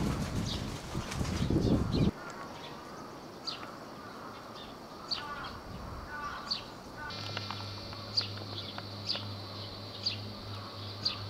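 A falcon's wings flapping loudly for about the first two seconds as it leaves its perch. Then small birds chirp faintly in short, falling notes about once a second, and a steady low hum starts about seven seconds in.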